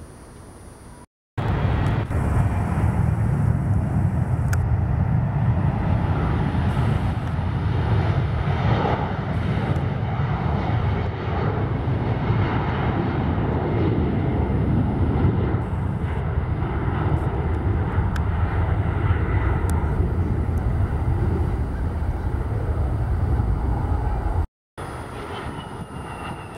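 Twin turbofan engines of a Breeze Airways Embraer E-Jet running at high power as it rolls along the runway: a loud, steady jet rumble and roar. After a brief break near the end, a quieter jet sound from a regional jet landing.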